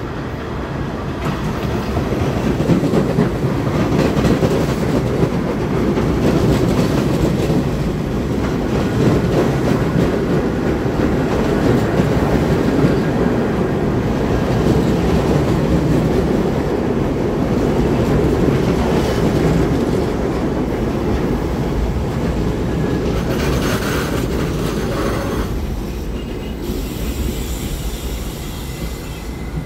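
R68A New York City subway train pulling into a station: a steady rumble and clatter of steel wheels on the rails that builds in the first few seconds. Near the end a squeal rises as the train slows to a stop, followed by a hiss.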